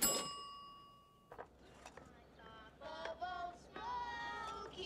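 A sharp hit with a bright bell-like ring that fades over about a second, then a soundtrack song with singing starts up.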